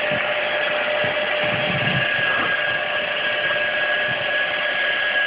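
Handheld hair dryer running on a steady blast, a loud whooshing with a thin motor whine; a second, higher whine joins about two seconds in.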